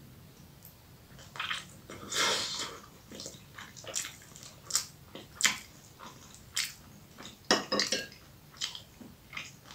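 Crunchy bites and chewing of a crisp fried grated-potato and minced-meat bake, with a fork clicking on a ceramic plate: a series of short, sharp crunches and clicks starting about a second in.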